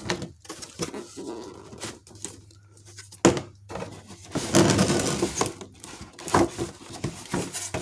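Cardboard box and packaging being handled: scraping and rustling with a few sharp knocks, the loudest a little over three seconds in, over a low steady hum.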